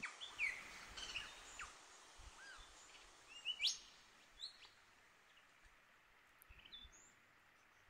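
Faint, scattered bird calls in eucalypt forest: short chirps and quick sliding notes, the loudest a fast rising whistle about halfway through, then only a few soft chirps.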